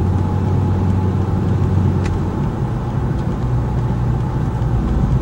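Car interior noise while driving: a steady low engine and road rumble heard from inside the cabin.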